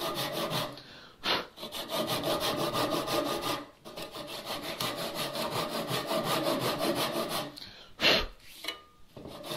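Ryoba Japanese pull saw cross-cutting a pine bench leg: quick, even saw strokes in three runs, with short pauses about a second in and nearly four seconds in. The sawing stops about seven and a half seconds in, and a brief louder sound follows near the end.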